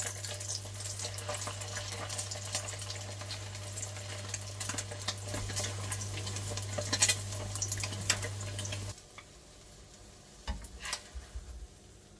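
Whitebait fritters sizzling and crackling in shallow oil in a frying pan, over a steady low hum. About nine seconds in, the frying and the hum drop away abruptly, and a few soft knocks follow.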